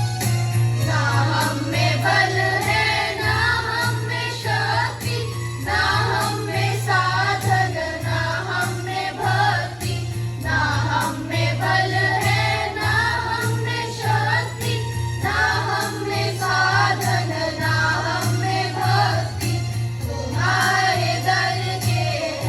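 A group of students singing a prayer together to instrumental backing with a steady percussive beat.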